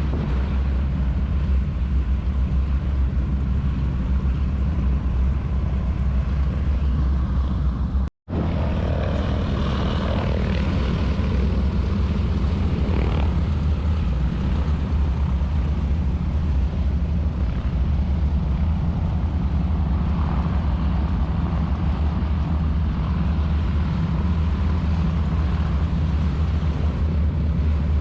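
Beech 18's twin radial engines and propellers running with a steady low drone. The sound drops out completely for a moment about eight seconds in, then carries on unchanged.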